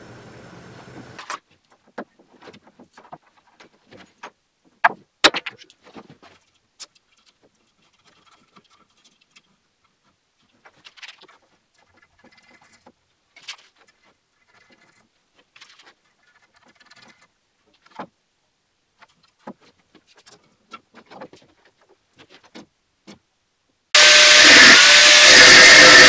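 Scattered light clicks and taps of small metal parts being handled on a workbench. Near the end an angle grinder suddenly starts cutting metal, a loud whining grind that is by far the loudest sound.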